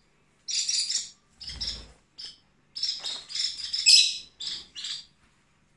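Small pet parrot chirping in a run of short, high bursts of chatter, loudest about four seconds in.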